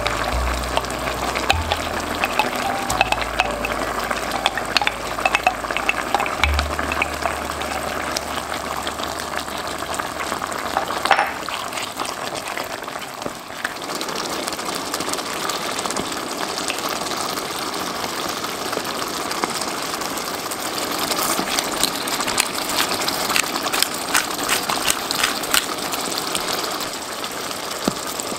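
Tomato sauce with onions, peppers and mushrooms simmering in a pot, a steady hiss with many small bubbling pops and crackles.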